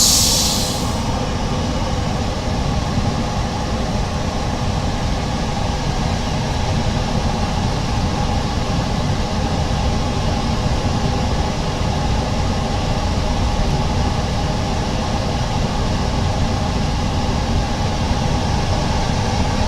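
Steady mechanical rumble with a faint hum, unchanging throughout, from running room equipment. A brief hiss sounds right at the start.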